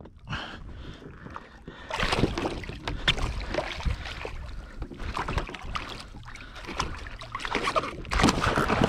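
Irregular knocks, bumps and clatter on a fishing kayak, from gear and a freshly landed fish being handled on deck.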